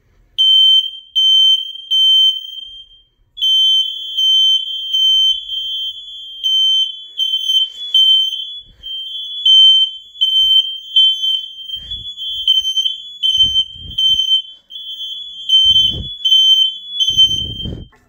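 Smoke alarms sounding in a test: loud, high-pitched beeps in a three-beep-and-pause pattern, with a second alarm at a slightly different pitch joining about three seconds in, the two beeping out of step. A few low rumbles of handling noise near the end.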